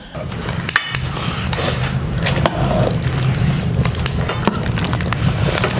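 A metal ladle stirring and scraping an aluminium pot of meat curry cooking on a wood-burning stove, with scattered clicks of metal on metal over a steady low cooking noise.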